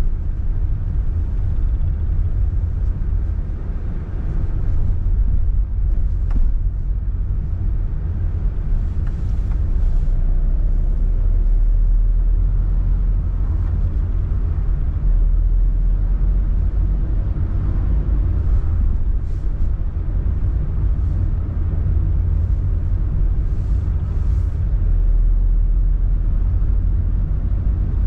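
A car being driven, a steady low rumble of engine and road noise.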